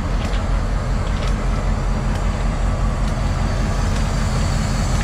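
Diesel locomotive engine idling close by, a steady low drone. Faint crunches about once a second are footsteps on the track ballast.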